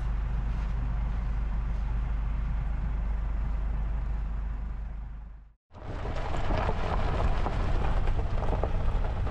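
Camper van's engine idling steadily, heard from inside the cab, fading out about five and a half seconds in. After a brief silent gap comes the crackling rumble of the van driving on a gravel road.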